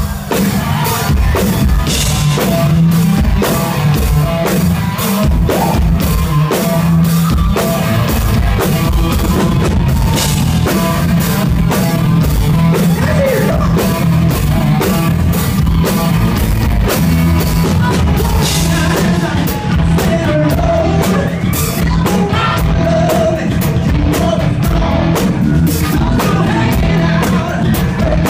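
Live rock music played loud over a club sound system, with a steady pounding drum beat, heavy bass and guitar, and a singer's voice over it.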